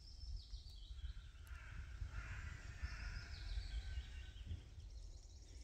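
Faint songbird song: two falling runs of high notes, one near the start and one about three seconds in, over a steady low rumble.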